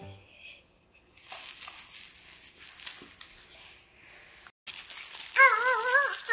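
Baby toys rattling and rustling as they are shaken. About two-thirds of the way in, a louder, high-pitched warbling tone starts and wavers up and down.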